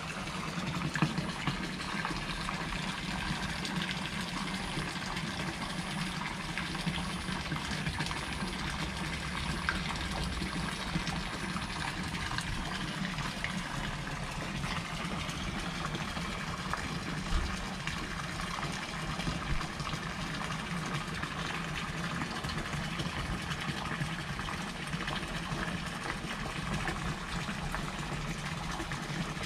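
Steady sound of running water, with a low steady hum underneath.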